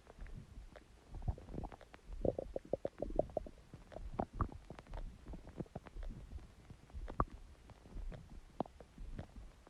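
Human stomach growling and gurgling: irregular bubbly pops and low rumbles, with a quick run of about a dozen pops between two and three and a half seconds in.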